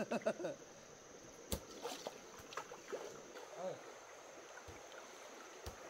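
Stones skimmed across water: a quick run of light splashes just after the start and a single sharp slap about a second and a half in, over faint water lapping.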